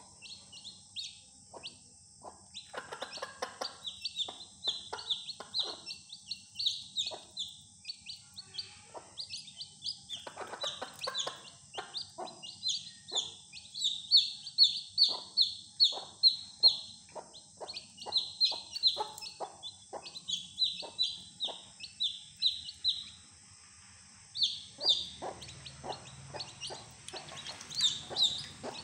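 Young domestic chicks peeping continually: short, high, falling peeps several a second, with short lower sounds in between and a brief lull near the end.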